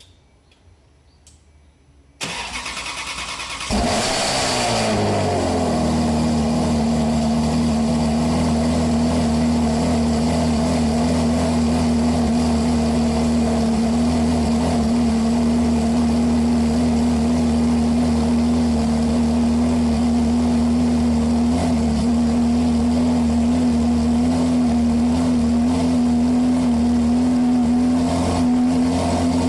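Ferrari 360's 3.6-litre V8 through an MS-Racing aftermarket exhaust being started: the starter cranks about two seconds in, the engine catches with a brief flare of revs that falls back, then it settles into a steady idle.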